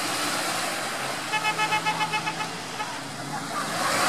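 Toyota Land Cruiser 100's engine running under load as the SUV churns its wheels through deep mud, getting louder near the end as the tyres throw mud. Just over a second in, a rapid string of short beeps, about eight a second, lasts about a second.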